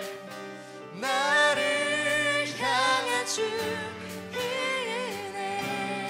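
A woman sings a contemporary Korean worship song into a handheld microphone over a band's sustained chords. The music is softer at first, and her voice comes in strongly about a second in.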